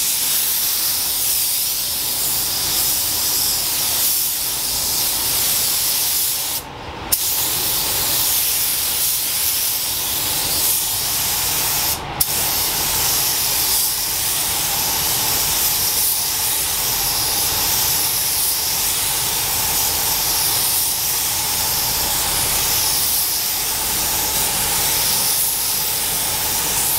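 Compressed-air paint spray gun spraying clear coat: a steady hiss, broken twice, briefly about 7 seconds in and for a moment about 12 seconds in.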